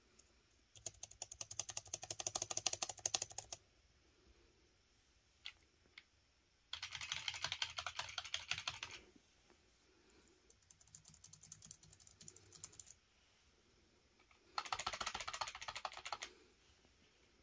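Fast typing on Logitech keyboards, the low-profile MX Keys and the K270, with keys clattering in four bursts of a few seconds each and short pauses between. The third burst is quieter, and there are a couple of single taps before the second.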